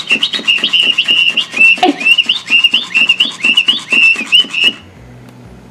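Battery-powered flapping-wings sparrow cat toy running: its motor beats the wings with rapid clicking while it plays a fast string of high electronic chirps. It cuts off suddenly near the end.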